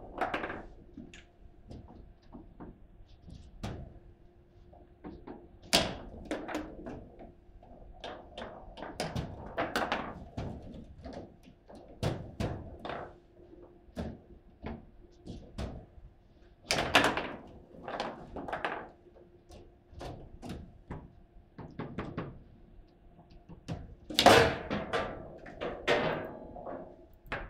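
Foosball table in fast play: irregular sharp knocks and clacks as the ball is struck by the plastic players and rebounds off the table walls, with the rods knocking in their bearings. There are clusters of harder hits, the loudest near the end.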